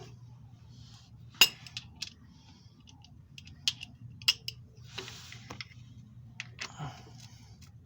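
Metal hand tools clinking and clicking at irregular intervals as a socket and wrench are handled and fitted onto a bolt, with one sharper clink about a second and a half in.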